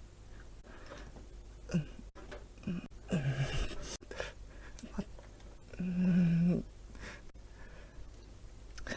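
A woman breathing in and out, with a longer breathy exhale about three seconds in and a short voiced breath with a steady pitch about six seconds in.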